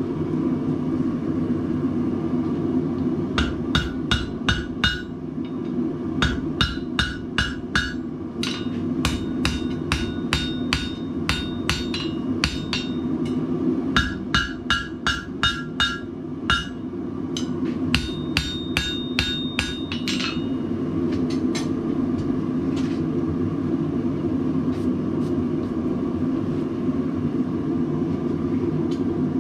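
Hand hammer striking hot steel on an anvil's horn, stretching out a punched hole, in runs of quick ringing blows with short pauses, from about three seconds in until about twenty seconds in. The forge runs steadily underneath, and is all that is left after the hammering stops.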